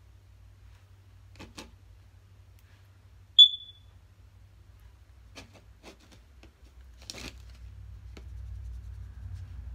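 A single short, high ping about a third of the way in, the loudest sound here, over a few faint clicks and taps as a makeup brush and eyeshadow palette are handled.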